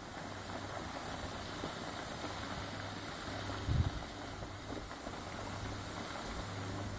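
A machine running steadily with a low hum, and a brief low thump a little under four seconds in.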